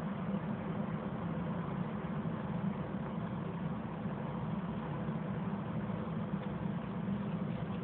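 Steady low mechanical hum, as of an engine or machine running, unchanging throughout.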